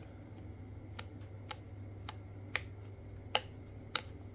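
Guitar pickup selector switch on a pre-wired pickguard being flicked back and forth through its positions: a string of sharp clicks, about one every half second, some louder than others.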